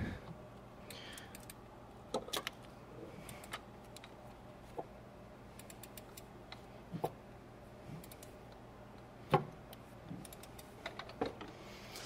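Faint, scattered metallic clicks and clinks of hand tools against the engine, a second or two apart, the loudest about seven and nine seconds in, as the crankshaft is turned by hand with a wrench to bring a cylinder to top dead center.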